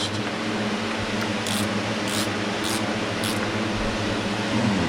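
Chainsaw bar nuts being tightened by hand tool: four short scraping strokes about half a second apart, over a steady background fan hum.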